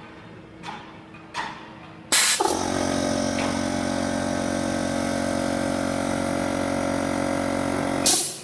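A welding machine runs steadily for about six seconds, a constant hum of several tones over a noisy rush. It starts about two seconds in with a short loud burst of noise and stops with another near the end.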